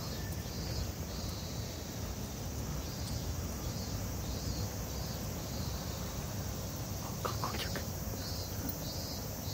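Insects calling in a high, pulsing rhythm of about two pulses a second over a steady low rumble of outdoor noise.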